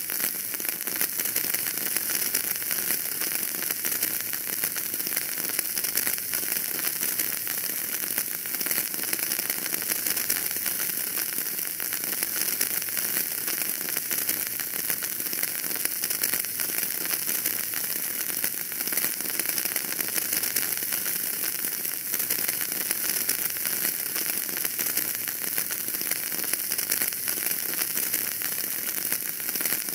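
Wood fire burning in a fireplace, crackling with a dense, even patter of small pops over a steady hiss.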